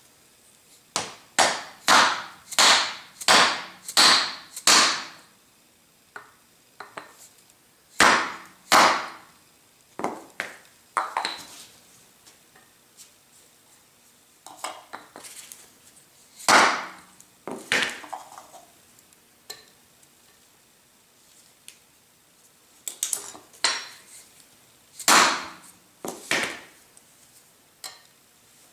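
Hammer blows on an oak mandrel, driving a ball bearing into the bore of a steel planer table roller: a quick run of about seven strikes, a pause, then two more and scattered single blows with pauses between.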